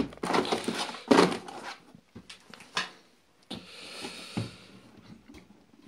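Handling knocks and clicks as packs of thread-cutting taps are pulled from the lid of a plastic toolbox and the box is handled, the loudest knock about a second in, followed by a soft brushing scrape.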